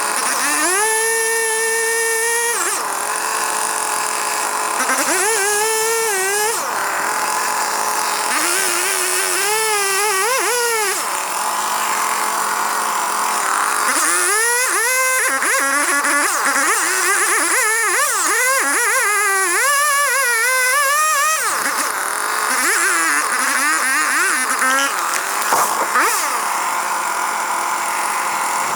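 Engine revving up and down in repeated stretches, its pitch rising, falling and wavering as the load changes.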